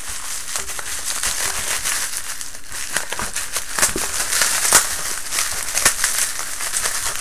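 Plastic bubble wrap being handled and pulled apart by hand, a continuous crinkling rustle with several sharp crackles standing out in the second half.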